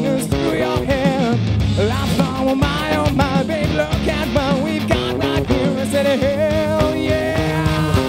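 Rock band playing live: electric guitars, bass and drums, with a male singer's voice carrying a wavering melody over the chords.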